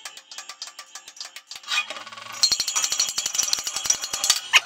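Rapid metal-on-metal hammer taps driving an old wheel bearing out of a dirt bike's aluminium wheel hub. About halfway through the taps come faster and ring brighter and louder, ending with one sharp hit.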